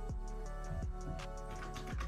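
Background music with sustained notes and a regular beat.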